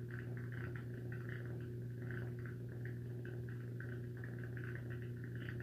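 Steady low electrical-sounding hum with a faint, uneven chattering on top, about three or four blips a second.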